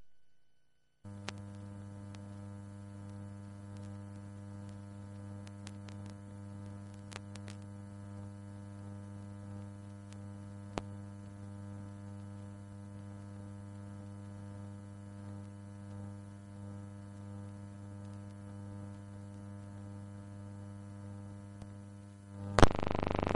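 Steady electrical mains hum with a few faint clicks, starting about a second in. Near the end a loud pop, then a louder noise begins.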